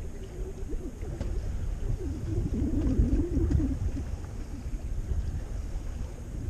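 Wind rumbling on the microphone aboard a sailboat under way, with a wavering squeak that rises and falls for about a second and a half in the middle.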